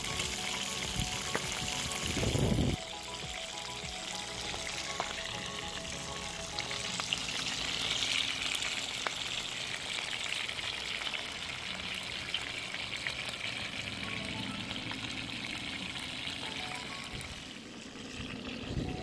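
Whole fish frying in hot oil in a pot, with a steady sizzle. A louder low thump comes about two seconds in.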